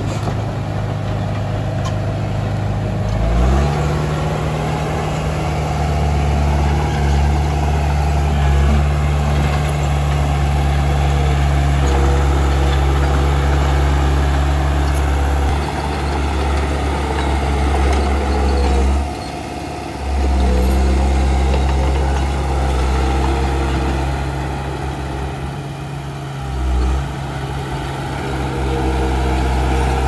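Komatsu D31 crawler bulldozer's diesel engine running hard, revving up about three seconds in and then holding steady under load, easing off briefly twice in the second half.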